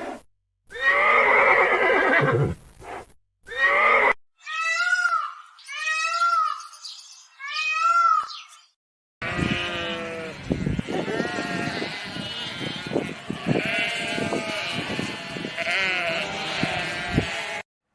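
Farm animals calling, in three short cut-together clips: a loud call lasting about three seconds, then four separate high arching calls, then several animals calling over one another for the rest.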